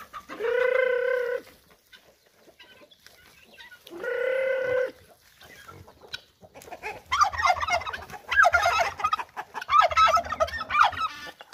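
Free-range farmyard poultry, chickens and turkeys, calling: two long, steady calls near the start and around four seconds in, then from about seven seconds a loud, fast run of short, wavering calls.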